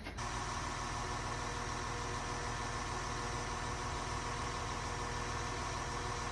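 An engine idling steadily: a low, even hum with a set of fixed tones above it that starts abruptly and does not change.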